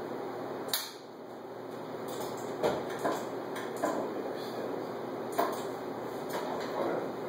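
Ceiling-mounted X-ray tube head being angled and positioned by hand: several sharp metallic clicks and clunks at irregular intervals from its mount and locks as it moves. Under them runs a steady hum.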